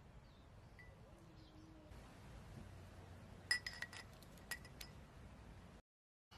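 Several light clinks of metal pliers against a glass cylinder holding liquid, the glass ringing briefly after each. The clinks come in a quick cluster just past the middle and last about a second and a half.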